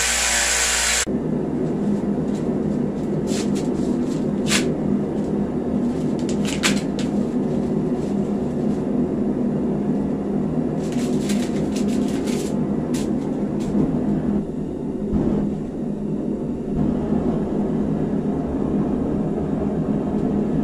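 A belt grinder runs for about the first second and then cuts off. After that a gas forge's burner runs with a steady low rumble, and light clicks and ticks come through it now and then.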